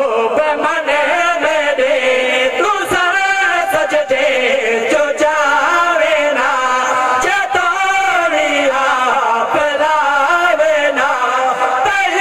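Male voices chanting the final verse of a naat into microphones in a long, melismatic sung line that bends and glides without a break.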